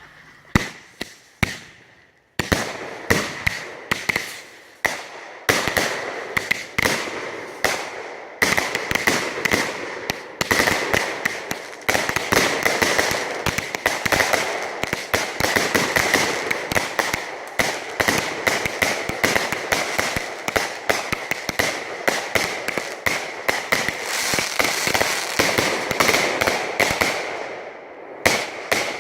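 A 1,000-count string of firecrackers, rigged into a homemade mascletà, going off. A few scattered cracks come first, then rapid continuous cracking starts about two and a half seconds in. It stops near the end after a couple of final bangs.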